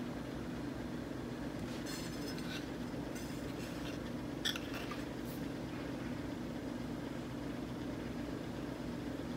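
Steady low hum with a few faint clicks, and one light clink about four and a half seconds in as a clear dessert cup is moved on a metal serving tray.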